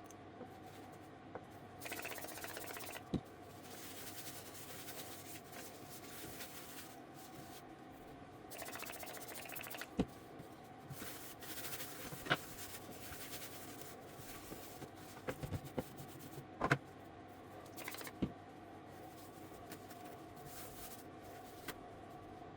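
Spray hissing in a few short bursts, with sharp clicks here and there, over a steady machine hum, while resin 3D prints are cleaned.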